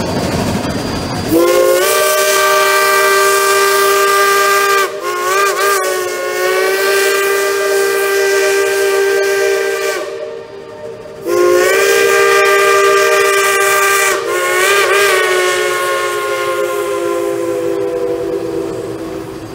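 Steam locomotive whistle blown in two long blasts, each sounding several tones at once as a chord, with a quick wavering of the pitch partway through each blast. The second blast sags a little in pitch as it trails off near the end.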